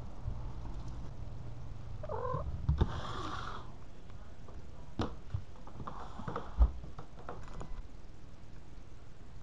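Audio from a pet camera worn on a cat's collar: a short cat call with a bending pitch about two seconds in, then bursts of rustling and several sharp knocks over a steady low rumble.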